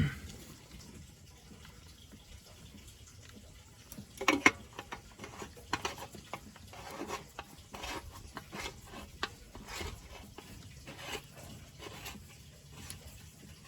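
Plastic oil filter housing on a Toyota 2AR-FE engine being screwed in and tightened by hand: a knock at the start, then a run of irregular small clicks and scrapes, the sharpest about four and a half seconds in.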